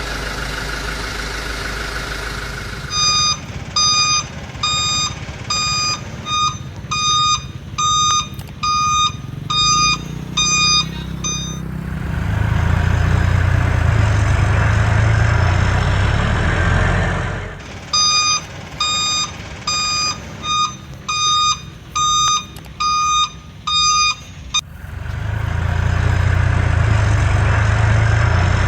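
Toy RC excavator's electronic sound effects: a warning beep repeating about one and a half times a second, alternating twice with a loud low engine-like rumble.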